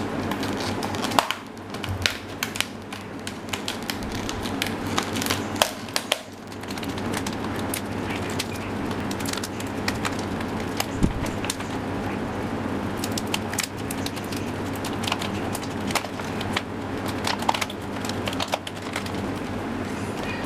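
A cardboard box and plastic packaging being opened and handled: scattered clicks, taps and crinkling over a steady low hum.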